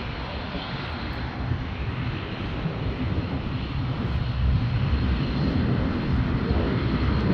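Aircraft engine noise: a steady rumble that grows gradually louder.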